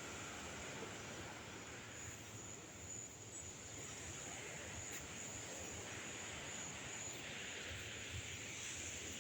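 Night shoreline ambience: a steady rushing of surf and wind, with insects trilling high and continuously over it.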